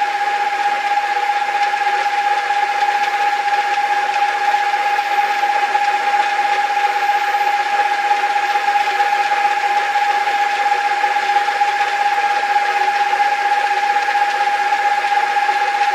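A 40-year-old metal lathe running steadily, a constant whine over an even mechanical running noise.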